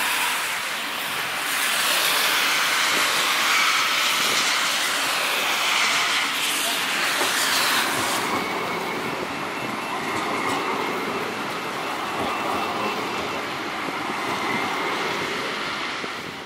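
CAF Urbos 3 tram running past at close range, its steel wheels rolling on the rails with a faint steady whine over the rushing noise.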